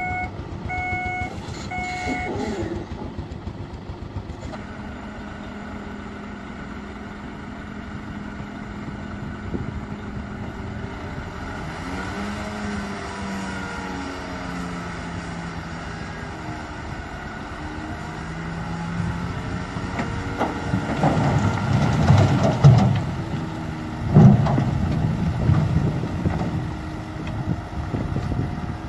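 Heavy diesel tipper dump truck backing up, its reversing alarm beeping a few times at the start, then the engine revving up and down as the bed is hoisted. In the last several seconds the load of rocky soil tumbles out of the tipped bed with loud, irregular rumbling.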